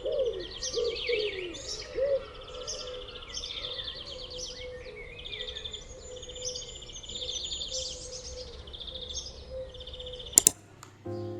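Songbirds chirping in fast, repeated trills, with a dove cooing over them for the first two seconds. Two sharp clicks come near the end, and music starts just after.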